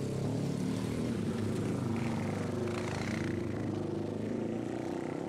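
Several small motorcycle engines running as the bikes ride past, their pitch wavering up and down as the riders change speed.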